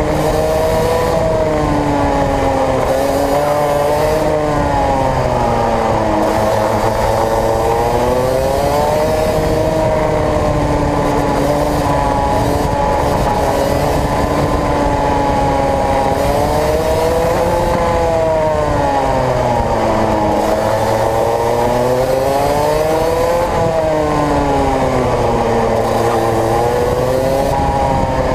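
Racing kart engine heard from on board, revving up along the straights and dropping in pitch into the corners, rising and falling again and again as the kart laps the circuit.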